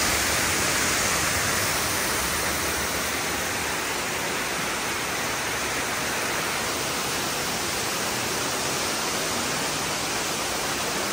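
Waterfall rushing steadily, heard from the cave behind the falling water; slightly quieter after the first few seconds.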